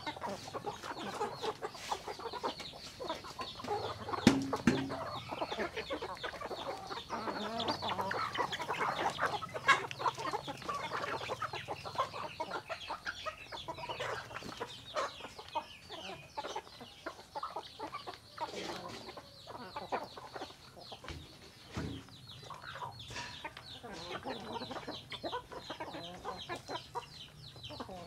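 A large flock of hens and roosters clucking over one another while they feed, a dense run of short calls with a few louder ones about four and ten seconds in.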